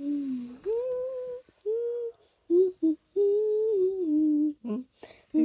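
A girl humming a song melody through closed lips, in short phrases of held notes with brief gaps between them.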